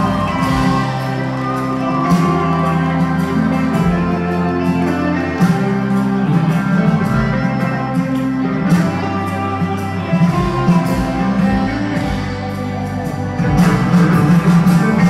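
Live band playing country rock in a large hall: electric guitars over bass and drums with a steady beat.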